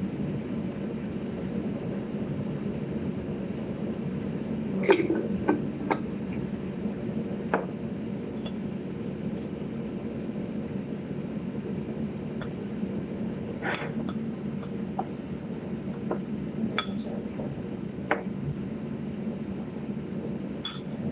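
Metal serving spoon clinking against a salad bowl as a dressed salad is tossed, in scattered single clinks a second or two apart over a steady low hum.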